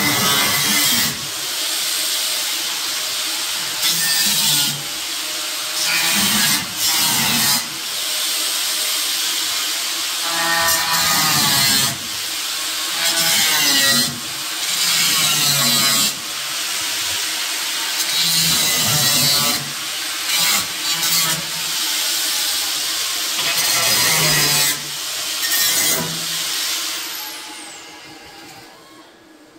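Handheld grinder cutting the sheet-steel body panel around the taillight opening of an old Chevrolet panel truck, running in repeated bursts with short pauses. It spins down near the end.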